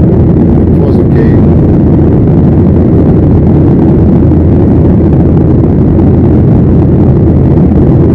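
Steady, loud cabin noise of a Boeing jet airliner in flight: the even, low rumble of the engines and of air rushing past the fuselage, heard from a window seat inside the cabin.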